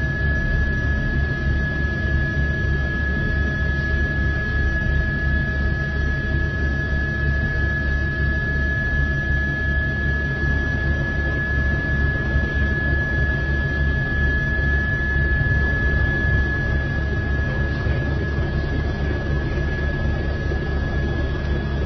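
Helicopter's rotor and turbine drone heard from inside the cabin: a steady low flutter under hiss, with a thin high whine.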